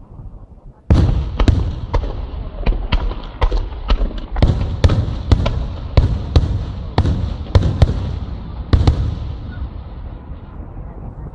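Rapid salvo of festa fireworks exploding: about twenty sharp bangs, two to three a second, start suddenly about a second in and stop near the end, each with a rolling echo. The rumble fades away after the last bangs.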